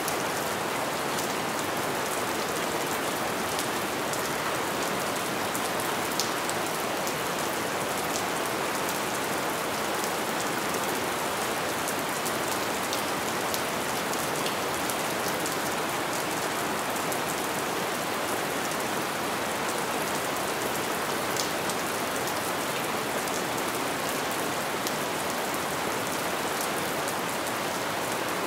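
Light rain falling steadily: an even hiss with scattered ticks of single drops landing close by.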